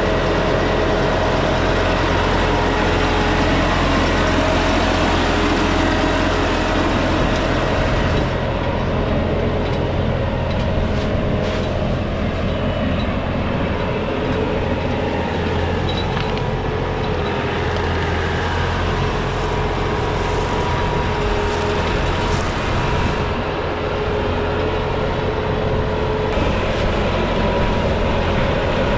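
New Holland tractor's diesel engine running steadily under work, a low rumble with a steady whine over it.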